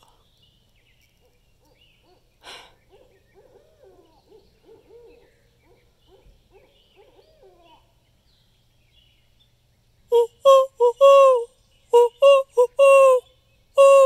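Barred owl hooting: fainter, wavering hoots through the first half, then near the end a loud, quick run of about eight to nine hoots.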